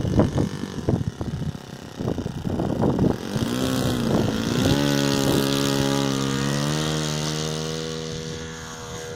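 Wind buffeting the microphone, then a radio-controlled model airplane's engine throttling up about three seconds in. It wavers at first, then runs steady at high revs with a slight rise in pitch, and fades as the plane takes off and pulls away.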